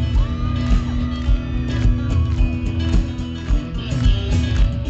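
Live country band playing an instrumental passage between sung lines, with guitar over a steady drum beat.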